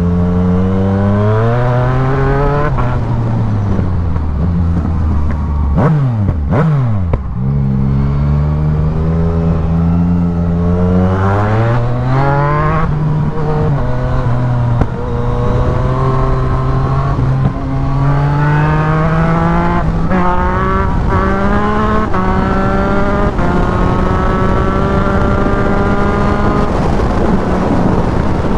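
Yamaha MT-09's three-cylinder engine through a full aftermarket exhaust, pulling hard up through the gears with quick upshifts that drop the revs in steps. Around six to seven seconds in, the revs fall and swing sharply up and down with blipped downshifts, then climb again through a run of fast upshifts.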